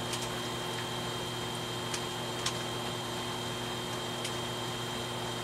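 Skutt Prodigy electric pottery wheel running at a steady speed: an even motor hum with a faint high whine, and a few faint ticks.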